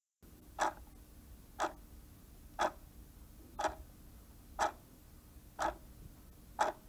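Clock-tick sound effect of a countdown timer, seven ticks one second apart over a faint hiss, counting down the answer time.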